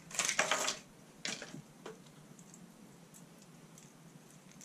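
A crankbait's retail packaging being opened by hand: a short burst of rustling and crinkling at the start, two briefer crinkles within the next second, then faint light ticking as the lure is taken out and handled.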